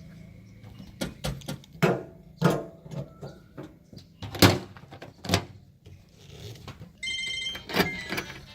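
Low steady hum of a machine engine under a series of irregular sharp knocks and clanks; about seven seconds in, a phone ringtone starts up with a repeating high electronic tune.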